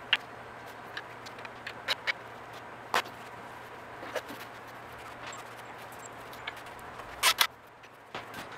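Scattered metal clicks and knocks from an MG TD engine block being handled and turned over on an engine stand, with a louder double knock near the end, over a steady low hum.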